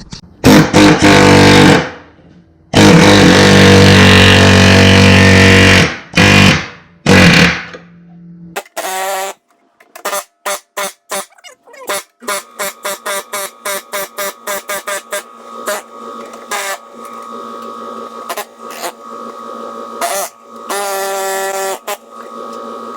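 A power tool cutting into the car's rusty sheet-metal floor pan in loud bursts, the longest about three seconds, over roughly the first eight seconds. After that comes background music with quick plucked notes.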